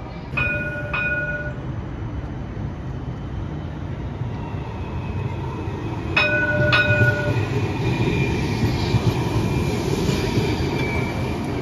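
A CAF Urbos 3 streetcar sounding its two-stroke ding-ding bell, once near the start and again about six seconds in, as it passes with a running rumble. A high steady whine from its wheels and drive goes on through the pass.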